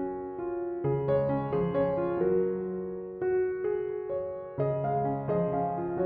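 Background piano music: a gentle melody over sustained chords, with notes struck and left to die away.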